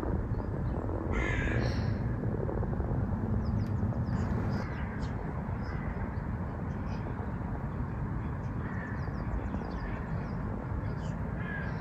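A bird calling a few times over a steady low rumble, the clearest call about a second in and fainter ones later.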